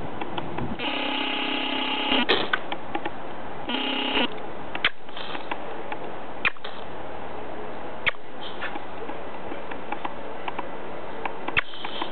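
A pet animal making two drawn-out, horn-like pitched calls, a longer one about a second in and a shorter one about four seconds in, followed by scattered sharp clicks.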